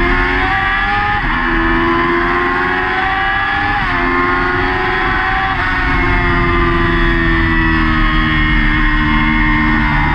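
Yamaha R6 600 cc inline-four racing engine at high revs, heard onboard the bike. The engine note breaks briefly about 1 and 4 seconds in, then falls slowly.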